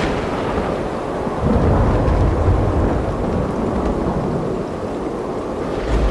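Thunder rumbling, swelling about one and a half seconds in and again near the end, over a steady hiss of rain.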